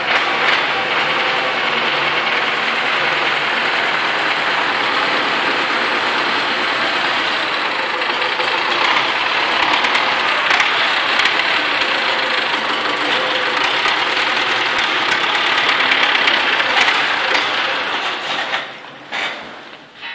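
Tractor diesel engine running steadily, dropping away near the end.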